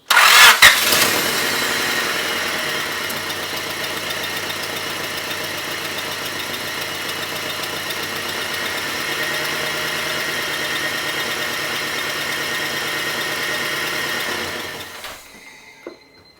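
A car's four-cylinder engine starting, catching within the first second, then idling steadily on four new spark plugs, which the owner judges to be running pretty good. The sound fades out near the end.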